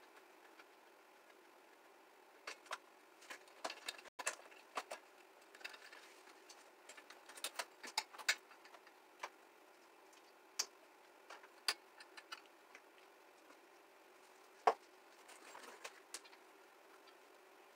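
Scattered light clicks and metallic clinks of hand tools and small parts being handled while working on a stripped-down scooter, coming irregularly in small clusters with one sharper clack late on.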